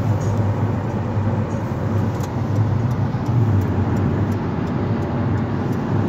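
Steady road and tyre noise with a low engine hum, heard inside a car cabin moving at highway speed.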